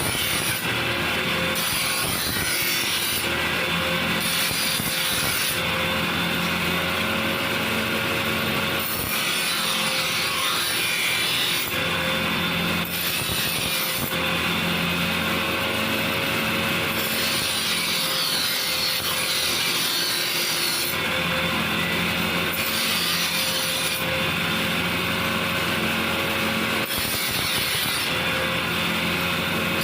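Electric power tool running steadily under load, with a continuous rasping noise over a steady motor hum.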